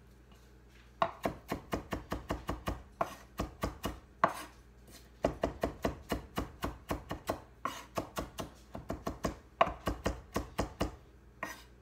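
Chef's knife chopping fresh parsley on a wooden cutting board: quick, even knocks of the blade on the wood, about four or five a second, in runs with a short break about four and a half seconds in.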